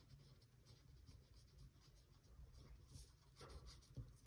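Faint scratching of a pencil on paper as a name is written by hand.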